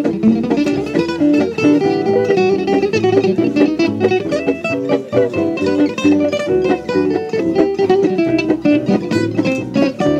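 Music led by plucked guitar, a quick, busy run of notes.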